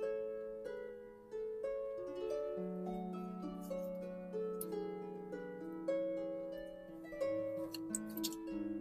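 Soft instrumental background music: plucked, harp-like notes moving over a held low bass note.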